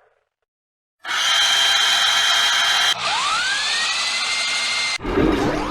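Cartoon factory power-tool sound effects. After a second of silence a drill whirs steadily, then a whine rises in pitch and holds, and near the end there is a jumble of low knocks and swooping tones.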